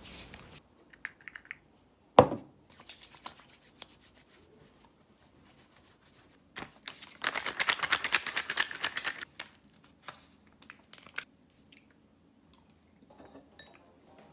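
A sharp knock about two seconds in. About seven seconds in come two seconds of crinkly tearing and rustling as a plastic drink pouch is torn open at the corner, then a few light clicks.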